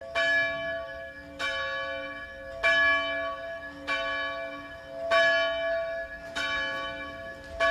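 A church bell tolling: about seven evenly spaced strokes, one every second and a quarter, each ringing on into the next, alternating louder and softer.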